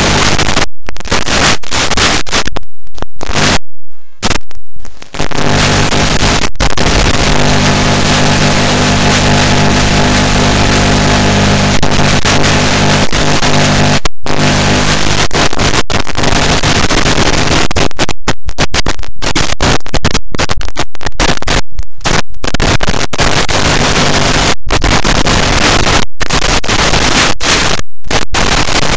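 Loud, harsh static hiss from an analog FPV video link as recorded by the goggles, cutting out to silence for brief moments many times, most often in the last ten seconds. A steady low drone of tones sits under the hiss for several seconds in the first half.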